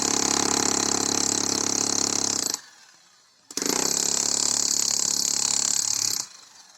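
Road-construction power machinery running loud and steady with a hiss. It cuts off abruptly about two and a half seconds in, starts again a second later and stops again near the end.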